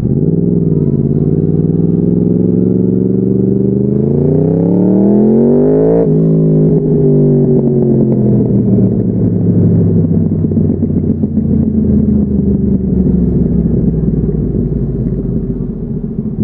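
2014 Yamaha YZF-R1's crossplane inline-four through a Bodis slip-on exhaust, on the move. The revs climb steadily for about two seconds, drop sharply about six seconds in, then the engine runs on at lower revs, easing down with a rough low rumble.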